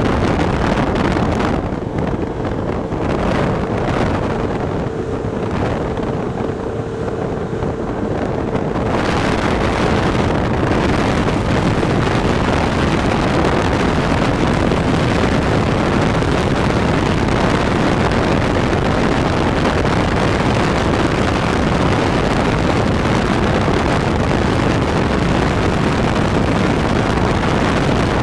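Motorboat running at speed, with wind buffeting the microphone and water rushing past the hull. For a few seconds near the start the wind eases and a steady engine hum comes through, before the full wind noise returns.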